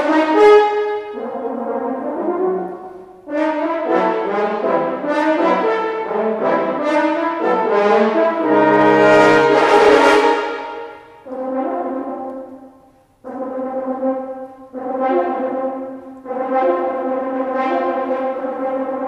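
A quartet of French horns playing chords in phrases broken by short rests. The loudest and fullest chord comes about nine seconds in, with a low note beneath it.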